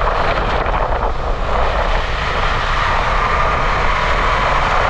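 KTM 250 Adventure's single-cylinder engine running steadily under way, mixed with road and wind noise.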